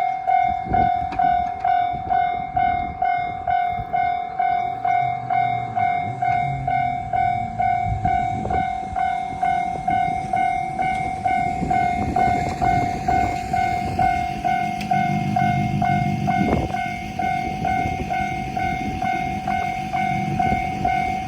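Japanese level-crossing warning bell clanging steadily, about two strikes a second. From about halfway through, a KiHa 200 diesel railcar's rumble and wheel clatter grow beneath it as the train comes through the crossing.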